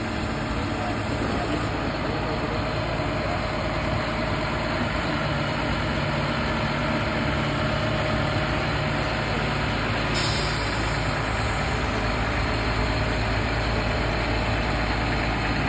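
Diesel engine of a Mount Washington Cog Railway biodiesel locomotive running with a steady low hum.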